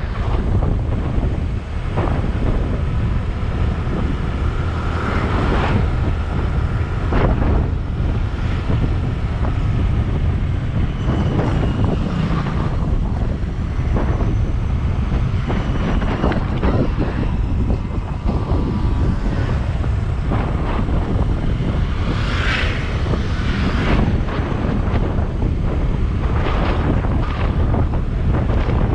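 Wind buffeting the microphone on a moving motorcycle, a steady rumble with gusts, with the motorcycle's engine and road noise underneath.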